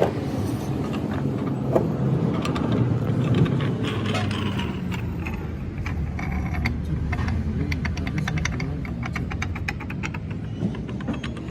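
Steady low mechanical rumble with metal clicking and clinking over it, quickening into a rapid run of sharp clicks in the later part.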